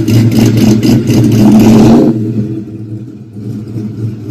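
Cammed GMC Sierra single-cab pickup's engine and exhaust running loud with an even pulse and rising briefly, then dropping off sharply about two seconds in as the truck drives away.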